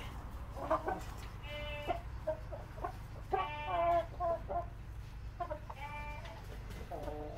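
Brahma hens clucking in a pen: a string of short pitched calls, one every second or so, over a steady low background hum.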